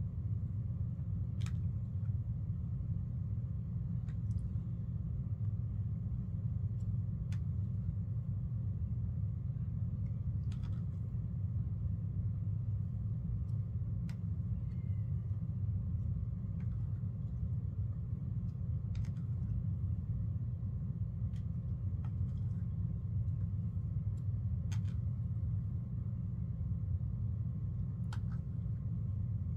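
Steady low rumble of room background noise, with faint light clicks every few seconds.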